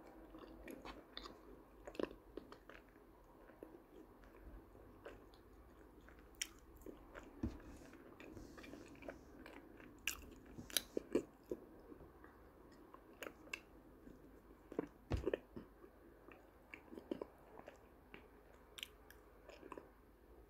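A person chewing ayilo (calabash chalk, an edible clay) paste and crumbs, with sharp, irregular crunching clicks. They come thickest about ten to eleven seconds in and again around fifteen seconds.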